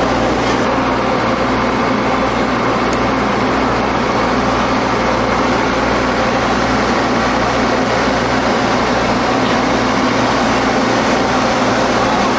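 Diesel railcar engine running steadily, a constant hum with a few steady low tones.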